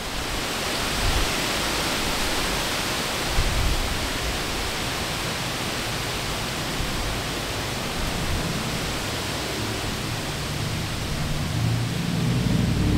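Steady rushing outdoor wind noise, with a low rumble building near the end.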